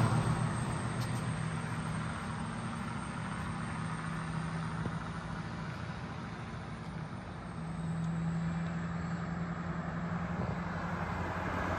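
Road traffic: cars driving along the street, a steady engine and tyre noise with a low hum under it, growing louder about eight seconds in as a car comes near.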